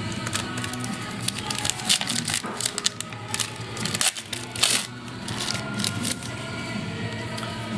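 A trading card booster pack's foil wrapper being torn open and crinkled: a run of sharp crackles, loudest about four and a half seconds in, over steady background music.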